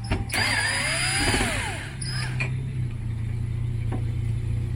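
A power drill runs briefly in the first two seconds, its pitch rising and then falling, over a steady low hum.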